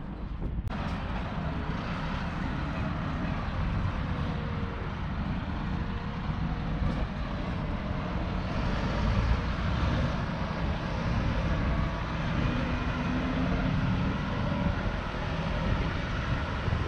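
Steady, low rumbling background noise with no speech, setting in abruptly just under a second in and then holding level.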